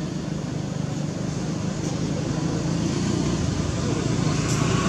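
Steady rumbling background noise with no distinct events, growing a little louder toward the end.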